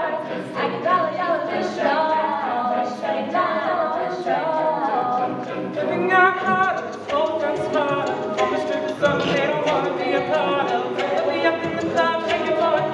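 Mixed male and female a cappella group singing a pop mash-up in close harmony, with vocal percussion keeping a steady beat.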